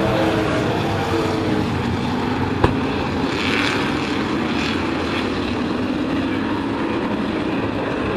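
Several racing sport-truck engines running hard together as the pack goes by, a steady dense engine drone. A single sharp click about two and a half seconds in.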